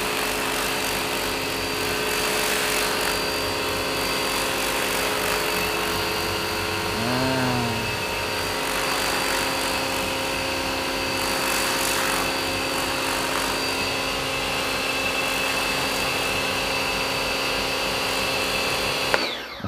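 Bosch EasyAquatak 120 electric pressure washer running steadily, its pump motor whining over the hiss of the water jet spraying into carpet. It cuts off suddenly near the end.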